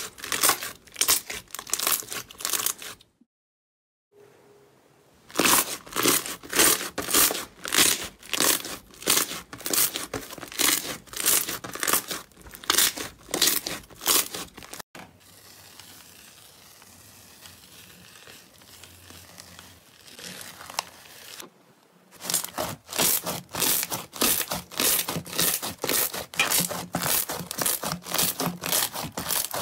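Glossy slime being stretched, pressed and squeezed by hand, making runs of short squishing sounds about two to three a second. They stop for about a second a few seconds in, go quieter for several seconds in the middle, and come back denser near the end.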